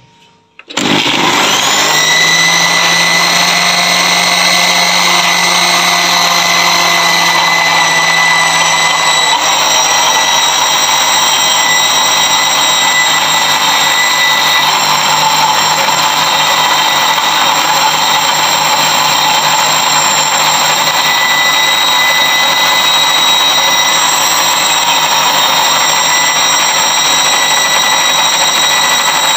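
Electric countertop blender switching on just under a second in, its motor whine climbing to speed and then running steadily at high speed, grinding mint and coriander leaves with lemon juice into a smooth wet chutney.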